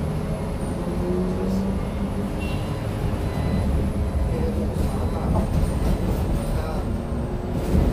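Inside a moving city bus: the steady low rumble of the bus running along, with a faint hum and a few light rattles near the end.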